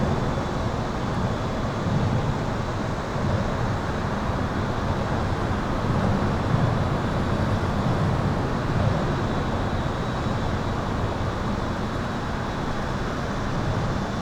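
Continuous highway traffic heard from beneath an overpass: a steady rumble of passing vehicles, deepest in the low end, with a faint steady high-pitched electrical buzz.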